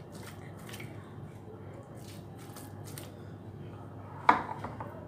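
A hand rubbing and turning marinated fish pieces in a bowl: soft wet squishing with faint clicks against the bowl, over a low steady hum. One short louder sound comes about four seconds in.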